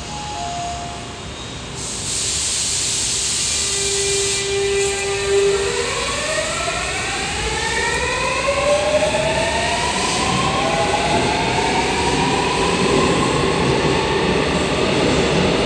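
A Seoul Metro Line 7 electric train pulling away. There is a burst of air hiss about two seconds in, then a steady hum. From about five seconds in the GTO VVVF traction inverter whine climbs in several rising tones as the train accelerates, over growing wheel-on-rail rumble.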